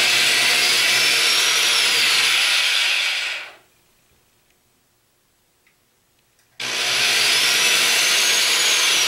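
Corded electric drill boring pilot holes through drywall for wall anchors. It runs steadily for about three and a half seconds, with a high motor whine that rises then drops. It stops, then starts again about three seconds later for the second hole.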